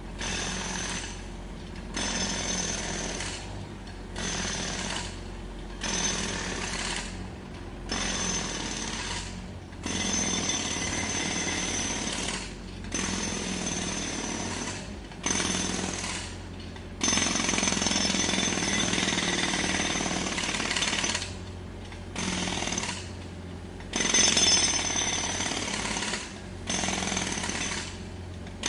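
Jackhammer breaking up road surface in repeated bursts of a second or two with short pauses between, and one longer run of about four seconds midway, over a steady low hum.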